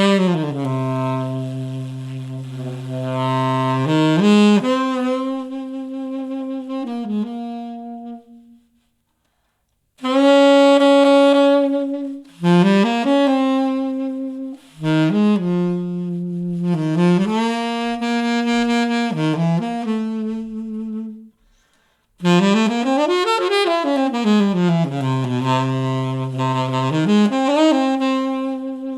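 Solo saxophone music played back through a studio monitor speaker and picked up by a microphone, with sliding, bending notes and two short breaks in the playing.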